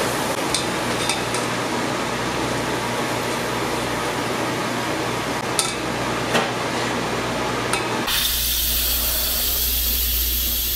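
Steady hiss of shallots frying in oil in a stainless saucepan, with a few light metallic clicks of a utensil against the pan. About eight seconds in, the sound switches abruptly to a higher hiss over a low hum from a countertop appliance heating.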